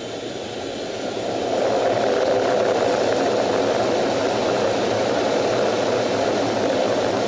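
F/A-18F Super Hornet's twin General Electric F414 turbofan engines running, heard from inside the cockpit: a steady jet-engine noise that grows louder about a second in, then holds steady.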